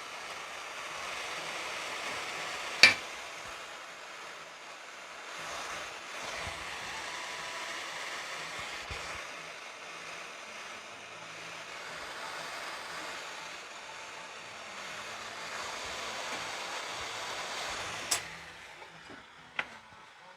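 A steady rushing, blowing noise that swells and eases slightly, with a sharp click about three seconds in and another near the end, after which the rushing stops.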